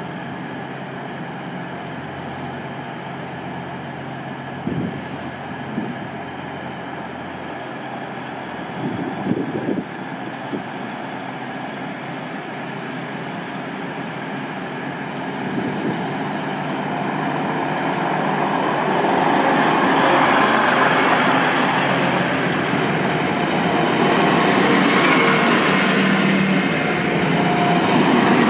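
Grand Central Class 180 'Adelante' diesel multiple unit, its underfloor diesel engines idling, then powering up as the train pulls away and runs past, the engine and wheel noise growing louder through the second half. A few short knocks come about five and nine seconds in.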